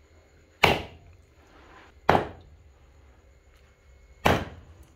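Heavy knife chopping raw buffalo meat and bone on a wooden stump chopping block: three hard chops, about a second and a half to two seconds apart.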